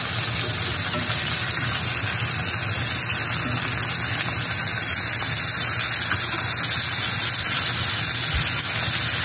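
Lamb chops sizzling steadily in oil in a cast iron skillet as they are turned with metal tongs, over a steady low hum.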